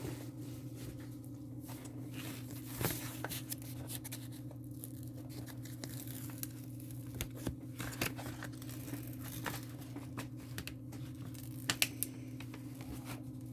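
A diamond painting kit's packaging being handled and unwrapped: rustling with scattered small clicks, two sharper clicks near the end, over a steady low hum.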